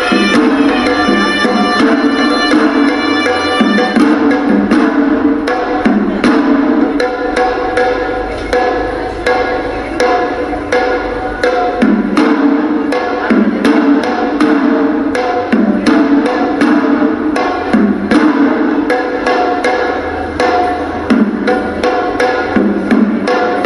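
Sri Lankan hewisi temple drumming: rapid, dense drum strokes with a horanewa (Sri Lankan shawm) holding a steady reedy melody over them.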